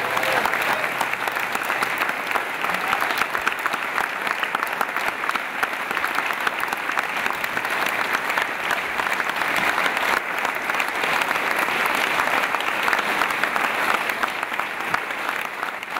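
A large audience applauding steadily: a dense, even clatter of many hands clapping.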